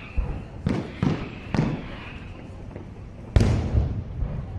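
Aerial fireworks shells bursting in the distance: a run of about five sharp bangs, each trailing off in a short echo, the loudest about three and a half seconds in.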